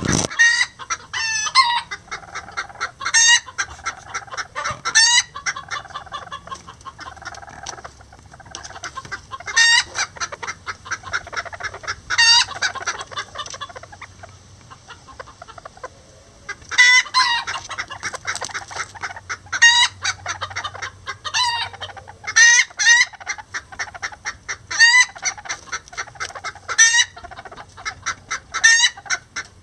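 Lavender Old English Game bantam chickens clucking: short, sharp clucks every second or two with softer low clucking between them, easing off for a few seconds midway.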